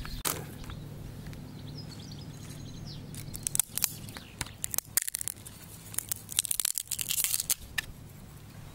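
Small waves lapping on a pebbly shore: scattered clicks and crackles, with a brief hissing wash about six to seven and a half seconds in, over a steady low hum.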